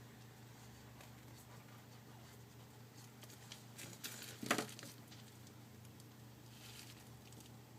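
Faint clicks and scrapes of a pry tool working at the plastic clips of a Samsung Galaxy Note 2's housing, with one sharper click about halfway through.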